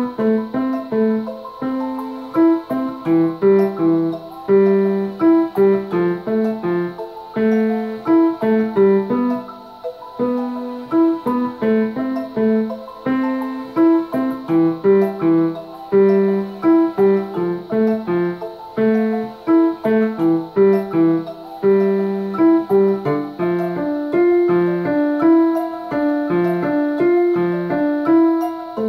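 A Casio digital piano plays a steady left-hand pattern of single notes around middle C, along with a recording of the piece that fills in busier notes above it.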